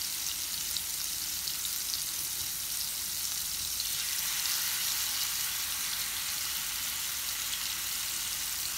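Masala-coated rohu fish steaks sizzling steadily in hot shallow oil in a frying pan, with light crackling of spattering oil.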